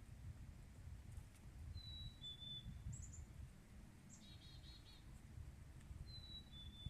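A songbird singing faintly, repeating a clear two-note whistle that steps from a higher note to a slightly lower one, with a short high trill and a rapid trilled phrase in between. A faint low rumble runs underneath.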